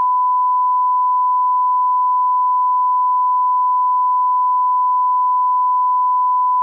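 Broadcast test tone that accompanies colour bars: a single pure beep held at one steady pitch and level.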